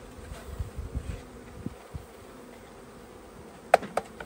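Honeybees buzzing as a package of bees is shaken out into a hive, with a couple of sharp knocks near the end as the wooden package is handled over the hive box.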